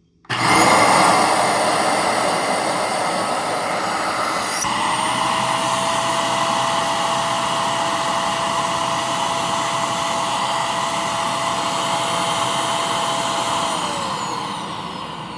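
Hoover Powerdrive XL vacuum cleaner switched on during a suction test, its motor and airflow running loud and steady. About four and a half seconds in, a steady whine joins the rush of air. Near the end the whine falls in pitch and the motor winds down after switch-off.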